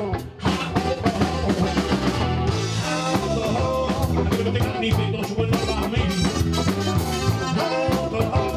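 Rock music with drum kit and guitar playing a steady beat.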